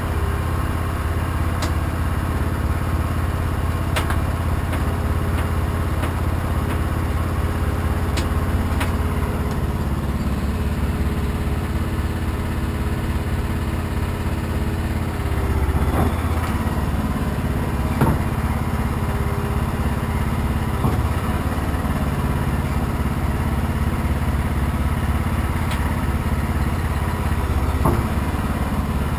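Heavy diesel truck engine idling steadily, with a few sharp knocks in the second half.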